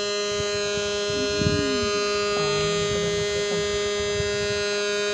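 A steady buzzing hum with many evenly spaced overtones holds one unchanging pitch throughout, with faint low knocks underneath.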